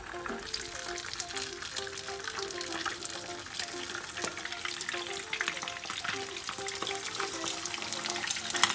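Whole fish sizzling and crackling in hot oil in a frying pan as more fish are laid in, with one sharper crackle near the end.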